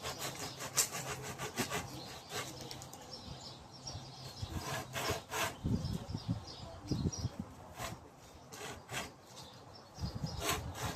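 Hand saw cutting through the papery outer bark of a birch piece in short, uneven back-and-forth strokes, scoring a spiral down to the inner bark to free a bark scroll.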